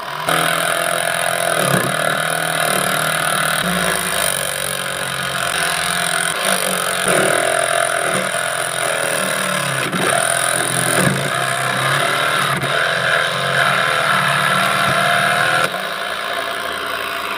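Homemade mini cutting machine, driven by a salvaged DC motor, cutting into an aluminium pipe. The motor's steady whine dips in pitch again and again as the pipe is pressed against the cutter. About three-quarters of the way through it drops in level and runs on steadily.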